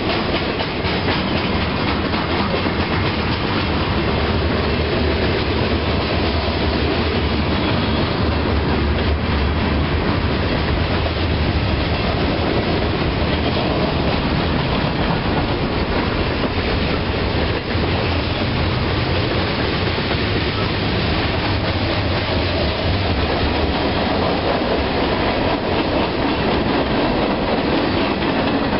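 Freight train cars (boxcars, flatcars, a tank car) rolling steadily past at close range: a continuous rumble with wheel clatter.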